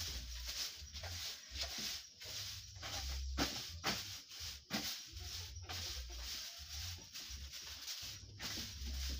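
Short hand broom of grass straw sweeping a dirt floor, with repeated brushing strokes about twice a second.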